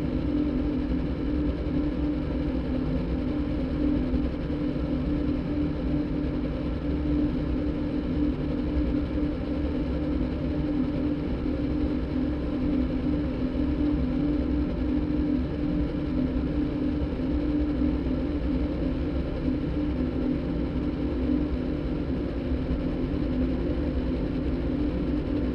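Sound-design soundtrack made from a motorbike's engine sound cross-synthesized with a đàn bầu recording: a steady, low, engine-like drone that holds without a beat or any break.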